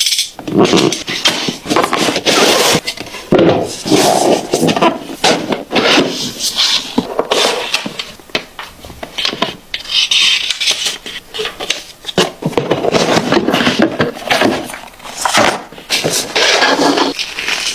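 Packaging handled during an unboxing: cardboard and plastic scraping, rustling and clicking in quick, irregular bursts.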